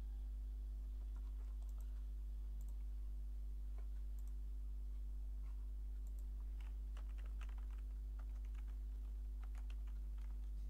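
Typing on a computer keyboard: a few scattered clicks, then a quick run of keystrokes in the second half. A steady low electrical hum lies under it throughout.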